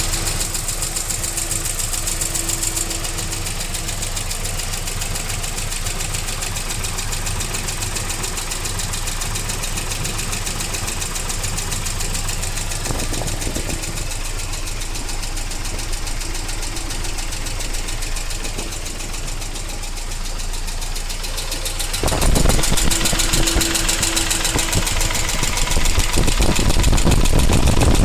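UAZ Patriot's ZMZ-409 four-cylinder petrol engine running with an extraneous noise, a fast, even ticking knock over the engine's sound. It gets louder about 22 seconds in and again near the end.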